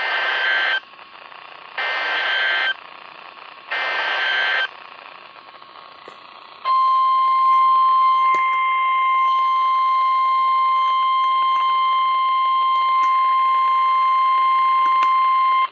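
Emergency Alert System SAME header on NOAA Weather Radio: three short bursts of screechy digital data tones about two seconds apart. After a pause comes the steady 1050 Hz warning alarm tone, held for about nine seconds before it cuts off. The sequence signals a special marine warning about to be read.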